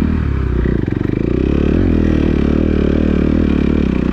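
Kawasaki KX250F four-stroke single-cylinder motocross engine running under load on a trail ride, its revs rising and falling with the throttle.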